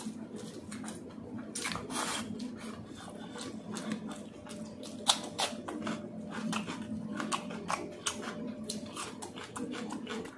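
Close-up mouth sounds of a man eating a mouthful of masala instant noodles: chewing, with many short wet smacks and clicks, over a low steady hum.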